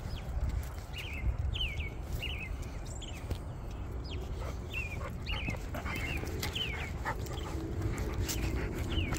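A dog whining in short, high, falling squeaks, about one or two a second, over a low rumble and light clicks from the walk.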